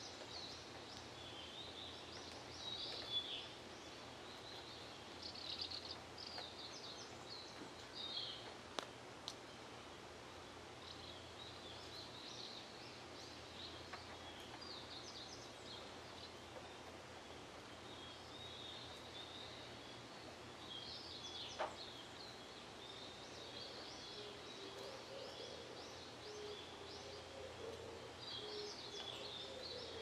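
Small birds chirping in scattered bursts of short high notes over faint, steady outdoor background noise. A lower bird call repeats during the last few seconds.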